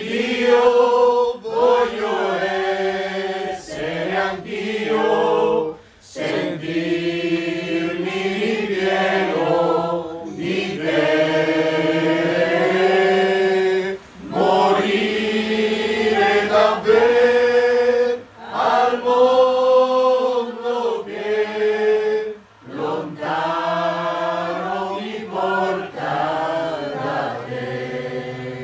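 A small group of women singing a hymn together in long held phrases, with short pauses for breath between them.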